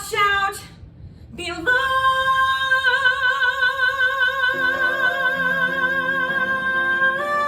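Female voice singing a long, high sustained note with vibrato, after a short break about a second in; the pitch steps up near the end.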